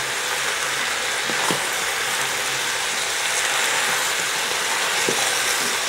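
Chopped vegetables sizzling steadily in the hot bowl of a Cookeo multicooker while they brown, stirred with a spoon that gives a couple of light knocks against the bowl.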